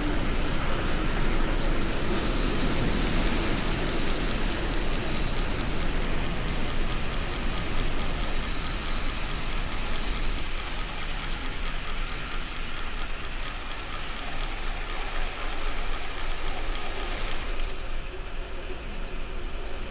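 Steady rushing wind noise on the microphone with the rumble of bicycle tyres rolling on the road, from riding along at speed; the hiss thins out near the end.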